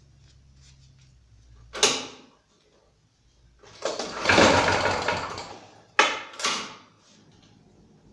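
Walk-behind lawn mower's small engine being pull-started after five months in storage, not catching: a sharp clunk about two seconds in, one longer pull cranking it through the middle, and two quick clunks after it.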